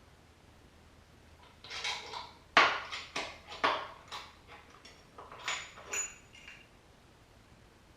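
Metal tools and engine parts being handled: a run of separate clinks and clanks over about five seconds, the loudest a sharp clank about two and a half seconds in, a few with a brief metallic ring.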